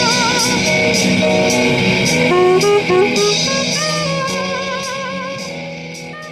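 Background music with held, wavering melody notes over a beat, fading out over the last few seconds.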